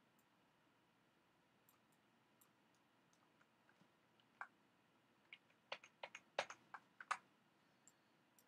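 Quiet room with computer mouse and keyboard clicks: a few faint ticks at first, then a quick run of about a dozen sharper clicks in the second half.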